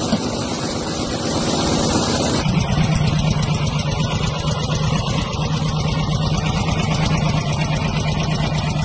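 Vintage Harley-Davidson V-twin engine running at a steady idle. About two and a half seconds in, the sound changes to a steadier, lower-pitched idle.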